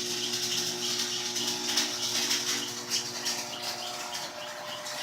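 Stick (electric arc) welding: a steady crackling, sizzling hiss from the arc, with a low steady hum under it.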